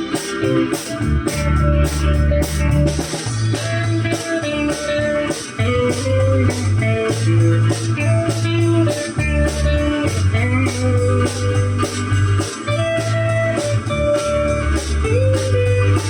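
Live rock band playing an instrumental passage with no singing: an electric guitar carries the melody over bass and a steady drum beat.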